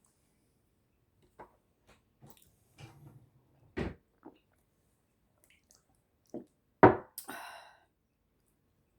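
Scattered light clicks and knocks of dishes and utensils at a meal table, with two louder sharp knocks about 4 and 7 seconds in and a brief rasp just after the second.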